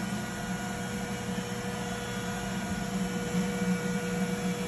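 Steady machine hum of boiler-room equipment, with a constant mid-pitched tone over a low drone and no change in level.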